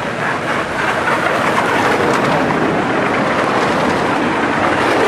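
Cars rolling past close by on an indoor show track: a steady rushing tyre noise with no engine note, swelling slightly about a second in.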